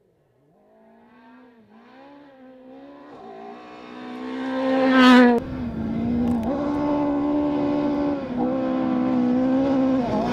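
Volkswagen Polo rally car approaching flat out, its engine revving high and climbing in pitch in each gear, with the pitch dropping at each upshift several times. It grows steadily louder, is loudest about five seconds in, and then keeps running hard close by.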